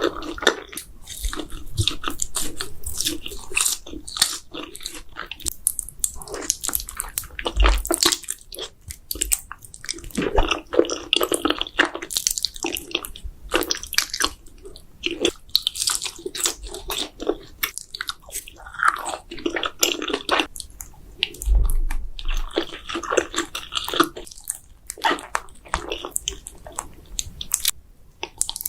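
Close-miked eating: wet chewing and biting of spicy Buldak noodles and breaded mozzarella sticks, with moist smacking and some crunching in a constant irregular run of clicks.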